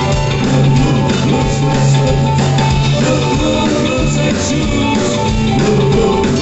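Loud rock and roll music with guitar, drums and a singing voice, playing at a steady beat for dancing.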